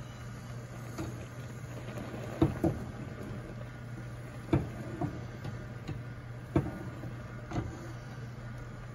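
Pots of rasmalai chhena balls and milk boiling on a gas stove: scattered bubbling pops, about seven at uneven intervals, over a steady low hum.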